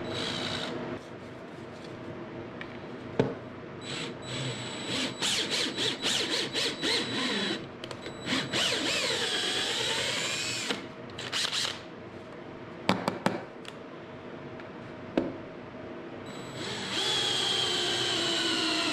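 DeWalt cordless drill driving a 3/8-16 tap into the holes of a 3D-printed PLA bracket, tapping threads. The motor whines in repeated short runs that speed up and slow down, with one long swooping change in pitch about halfway through and a steadier run near the end.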